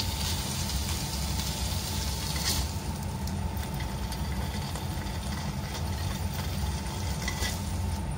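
Steady low rumble with a faint sizzle of oil in a nonstick wok that fades after the first few seconds, and a couple of light clicks of a plastic spatula against the pan.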